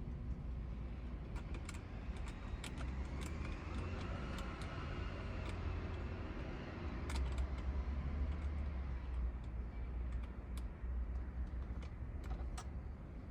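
Scattered light clicks and taps of an L-shaped hex key working the steering-wheel screws and trim, over a steady low rumble.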